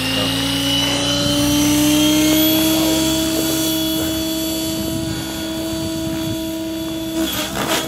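Gaui X7 radio-controlled electric helicopter flying: a steady whine from the motor and spinning rotors. It rises slightly in pitch over the first couple of seconds, holds, and breaks up near the end.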